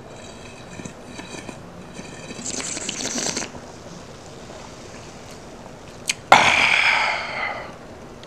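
Loud, wet eating and drinking noises. Short slurping and chewing bursts come first, with a longer, louder one about two and a half seconds in. A sudden burst about six seconds in is the loudest, and it fades out over about a second.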